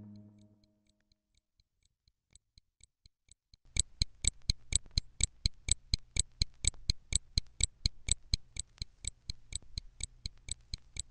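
A watch ticking at about four ticks a second, faint at first, then much louder from about four seconds in, over a low hum.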